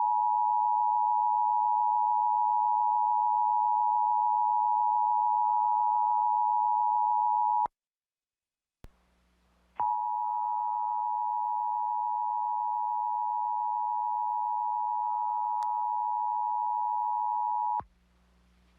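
Emergency Alert System attention signal: the steady two-tone alert, 853 and 960 Hz sounding together, held for about eight seconds and cutting off. After a pause of about two seconds it sounds again for about eight seconds over a faint hum.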